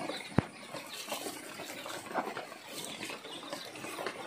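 Lemongrass leaves rustling and crackling as hands bend and knot them, with one sharp knock about half a second in.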